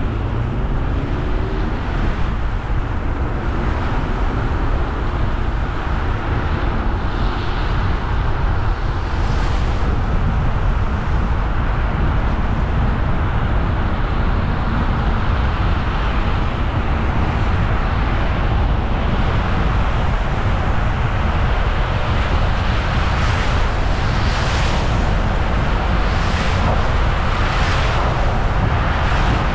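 A car driving along the road: steady tyre and engine noise, with brief hissing swishes recurring in the last few seconds.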